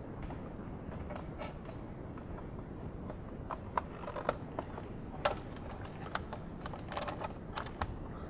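Small plastic clicks and creaks as a metal pick pries at the retaining tabs of a GM power sunroof switch in its overhead-console housing, releasing it from its mount. The clicks come irregularly and mostly in the second half.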